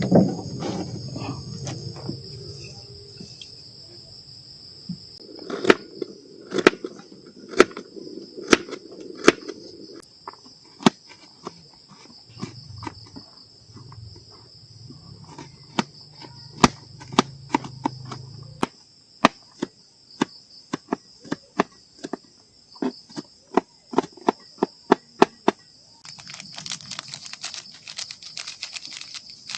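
Steady high-pitched insect chorus, with a long run of sharp knocks or taps, about one or two a second, from about five seconds in until near the end.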